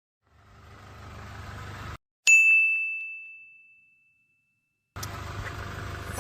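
A rumble that swells up and cuts off, then a single sharp, high-pitched bell-like ding that rings out and fades over about two seconds.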